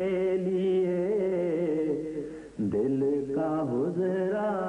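A voice singing a devotional Hindi-Urdu song, holding long, wavering notes with a short break about two and a half seconds in before the next phrase.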